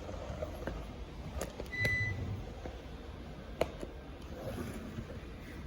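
A few sharp clicks and light knocks from small hard parts being handled, with one short high beep just under two seconds in.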